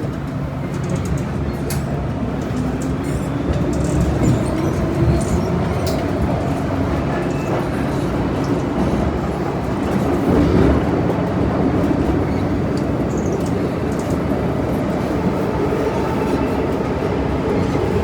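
Cabin sound of an MTR Metro-Cammell M-Train electric multiple unit on the move: steady rumble of wheels on track with a low traction-motor hum.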